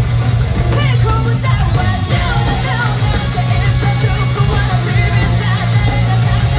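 Live hard-rock band playing at full volume, with distorted electric guitars, bass and drums under a female lead singer, heard from the audience.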